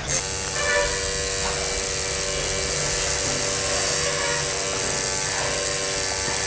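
Electric tattoo machine buzzing steadily as its needle works ink into skin.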